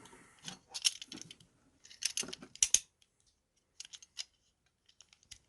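Scattered clicks, taps and rustles of plastic and cardboard packaging being handled, with a cluster of sharper clicks about two to three seconds in.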